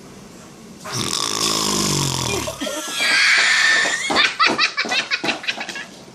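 A man snoring: one long, rasping snore falling in pitch, followed by people laughing in quick, short bursts.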